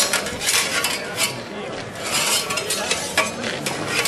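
Swords and bucklers clashing in a sword-and-buckler bout: an irregular run of sharp metallic clinks and clanks, several close together at times.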